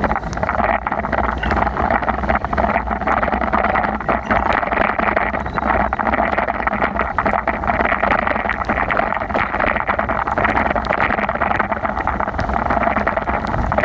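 Steady rush of heavy rain and wind on the microphone during a wet bicycle ride, with many small ticks of raindrops striking close by.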